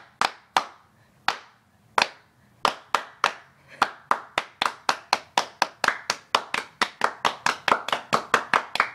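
Hands clapping close by, a few scattered claps at first, then a quicker steady run of about three claps a second.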